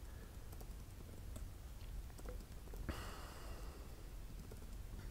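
Faint computer keyboard typing: a few scattered soft key clicks over a low hum, with a short soft hiss about three seconds in.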